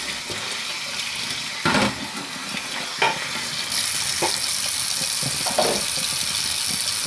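Kitchen tap running into a stainless steel sink while a metal non-stick muffin tin is scrubbed and rinsed under the stream, with a few clunks of the tin against the sink, the loudest about two seconds in. The water grows louder a little over halfway through.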